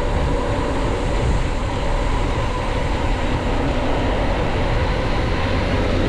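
Steady rush of wind on the microphone with road rumble underneath, from a rider moving fast downhill; faint steady tones sit under the noise.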